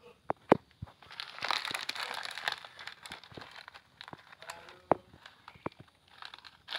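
Plastic Sukro snack packet crinkling and crackling as it is handled, with scattered sharp clicks.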